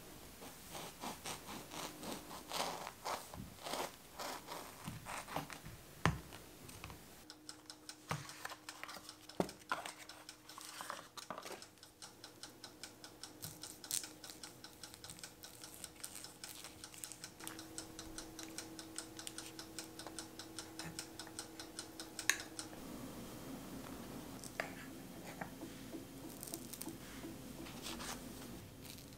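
A knife sawing through a baked bagel in quick scratchy strokes, then a knife slicing a block of cream cheese and a small spreader scraping cream cheese over the cut bagel halves.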